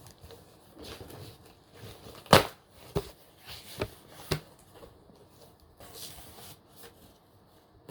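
Cardboard shipping box being handled and opened by hand: scattered rustles, scrapes and clicks, with one sharp crack about two and a half seconds in and a few smaller ones just after.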